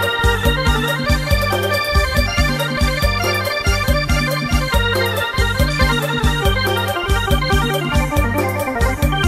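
Background music with a steady beat and sustained keyboard-like chords.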